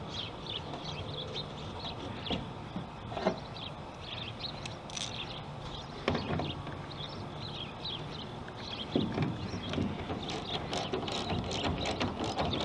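The taillight screws of a Ford F150 being driven back in with a hand tool: scattered small clicks and scrapes of metal on the screws and plastic housing, with a sharp click near the end.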